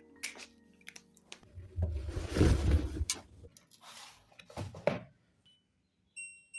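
Scattered clicks and a loud rustling rumble lasting about a second and a half, between the last notes of background music dying away and chime-like music notes starting near the end.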